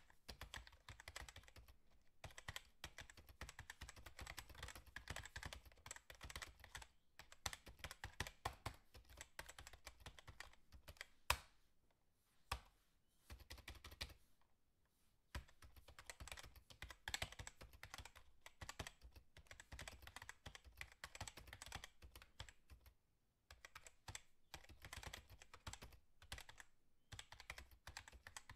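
Quiet, rapid runs of light clicks and taps, with a few short pauses and one sharper click about eleven seconds in.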